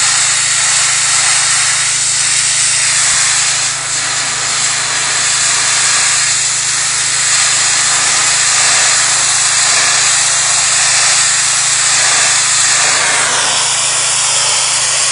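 Pressure washer spraying a wall: a loud, steady hiss of the water jet over the steady drone of the machine. A falling tone comes in near the end.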